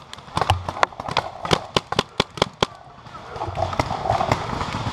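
Paintball markers firing a quick, irregular string of sharp pops for the first two and a half seconds or so, then a few more single shots near the end.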